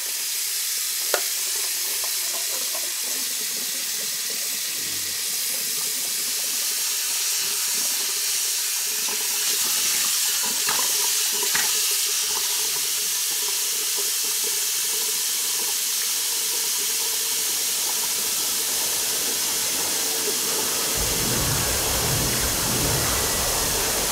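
Tap water running steadily into a bathroom sink, with a few small splashes or knocks along the way. A low rumble joins near the end.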